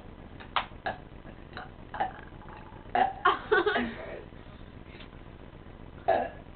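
Human burps in a burping contest: several short burps, with a quick run of them about three seconds in and another burp near the end.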